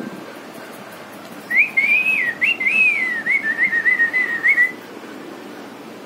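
A person whistling a wavering, warbling high note with quick trills and dips. It starts about a second and a half in and lasts about three seconds.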